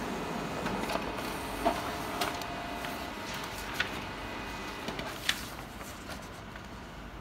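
Ricoh Aficio SP C430DN colour laser printer running as it finishes printing its colour demo page: a steady whir with faint tones, quieting near the end. Several sharp clicks fall through it, and the printed sheets rustle as they are picked up.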